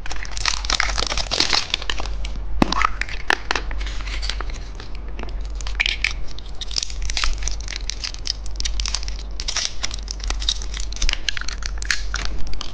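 Plastic candy packaging crinkling and tearing as a surprise cookie egg is unwrapped by hand, with scattered small clicks and crackles.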